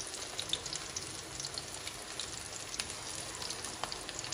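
Mix pakoras (gram-flour batter with spinach, potato and onion) deep-frying in hot oil in an iron karahi: a steady sizzle with scattered small pops and crackles.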